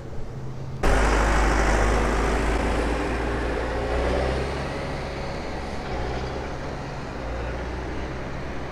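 Diesel engine of a yellow wheeled tractor-loader driving past on the road, with traffic noise. It starts abruptly about a second in and slowly fades as the machine moves away.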